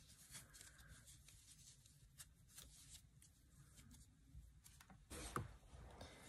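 Faint rustling and small ticks of a crochet hook working flat tape yarn through single crochet stitches, with a brief louder sound just after five seconds in.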